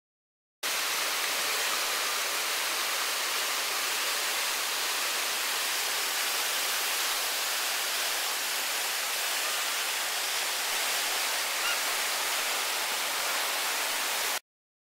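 River whitewater rushing steadily through a rapid, an even noise of churning water that cuts in suddenly just after the start and cuts off abruptly near the end.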